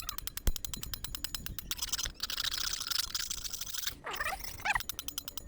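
Iron spoon scraping a cement water tank's surface in rapid, rhythmic strokes, rasping off the green growth around a leak, with a denser stretch of scraping in the middle. A short chirping call comes in about four seconds in.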